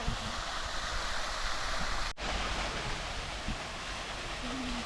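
Steady rush of running water from a stream or waterfall, with a momentary break about two seconds in.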